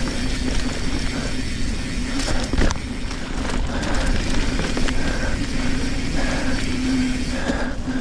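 Trek Fuel EX 7 full-suspension mountain bike rolling fast along a dirt singletrack: a steady tyre hum and rattle over wind rumble on the helmet camera, with a couple of sharp knocks from the bike about two and a half seconds in.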